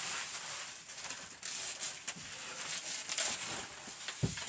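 Packaging wrap rustling and crinkling as a plastic-wrapped board is pulled out of its wrapping, with a dull knock about four seconds in.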